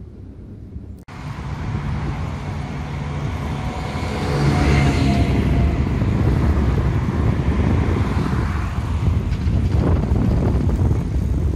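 Street traffic noise with a tram moving past, starting abruptly about a second in after quieter outdoor ambience and growing louder about four and a half seconds in.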